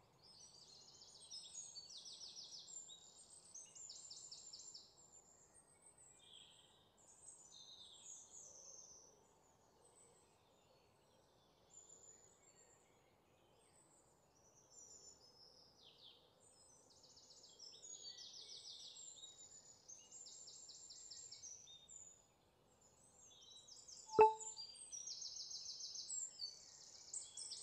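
Small birds chirping and giving fast, high trills on and off over a faint outdoor hiss. One sharp click comes about 24 seconds in.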